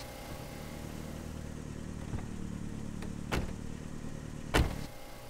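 SUV engine idling steadily, with two sharp knocks, one about three seconds in and a louder one about four and a half seconds in, as the car doors are shut.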